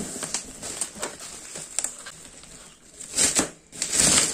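Thick plastic mailer bag rustling and crinkling as it is handled, with scattered small clicks and two louder bursts of rustling near the end.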